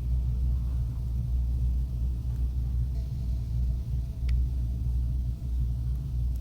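A steady low background rumble, with one faint click about four seconds in.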